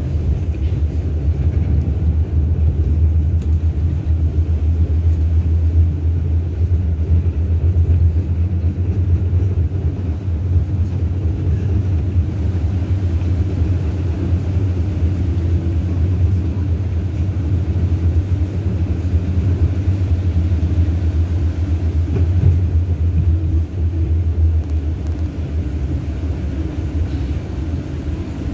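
Ride noise inside a moving 71-623-02 low-floor tram: a steady low rumble of the wheels on the rails and the running gear, a little quieter near the end.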